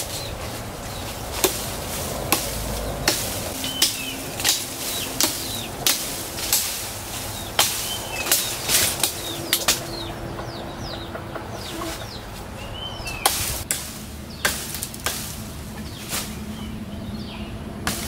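Leafy branches rustling and shaking as they are pulled and cut from a tree, with sharp cracks and snaps of twigs and branches breaking at irregular intervals, one or two a second.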